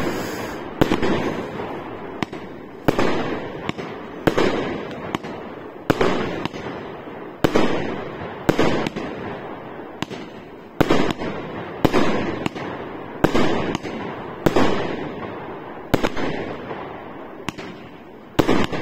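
A 30 mm 25-shot fireworks cake (Setti Fireworks Big Five) firing shot after shot. There are sharp bangs roughly every second or so, each trailing off into a fading rumble as the shells burst.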